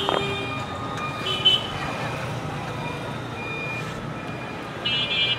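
Steady street traffic noise with short high electronic vehicle-horn beeps, once about a second and a half in and again near the end. A brief metal clink at the very start.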